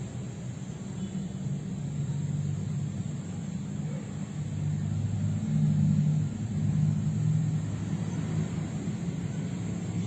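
Low, steady engine rumble of a motor vehicle, growing louder a little past halfway.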